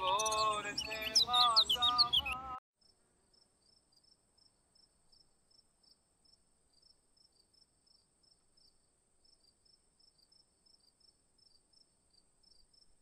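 Background music with a melodic line, cutting off about two and a half seconds in. Then faint night crickets: short chirps about three times a second over a steady high trill.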